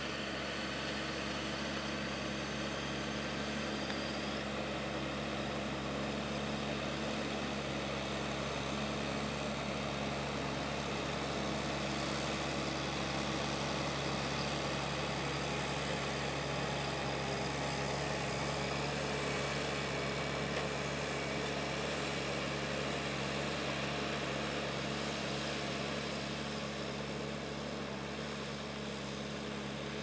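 Fendt 716 tractor's six-cylinder diesel engine running steadily under load as it pulls a four-furrow reversible mouldboard plough through the soil. It grows a little louder in the middle as it passes and eases off near the end.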